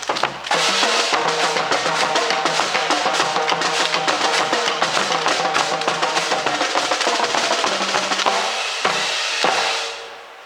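Drum-led music with rapid snare and bass drum strokes over a pitched accompaniment, stopping shortly before the end.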